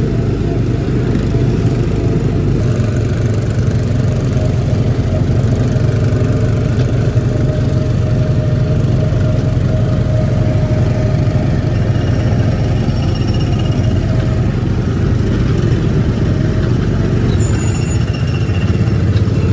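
Small gasoline engine of a Tomorrowland Speedway ride car running at a steady drone while being driven along the track.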